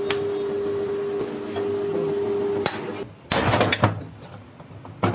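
A steady pitched tone for the first two and a half seconds. Then, about three and a half seconds in, a car drive shaft's CV joint gives a short burst of loud metal-on-metal knocking and clattering as it is worked by hand over a bench vise, with a shorter burst of knocks near the end.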